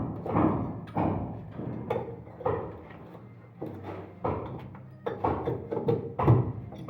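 Repeated knocks of a carpenter's tool striking wood, roughly two a second, each ringing briefly, with a short lull about three seconds in.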